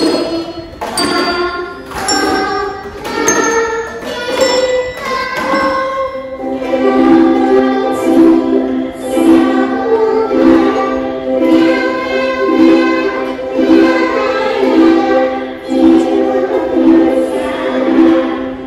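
Colourful handbells struck one note after another, each ringing and dying away, playing the do-re-mi scale. About six seconds in, ukuleles start a steady strummed beat and children sing a Chinese nursery song along with them.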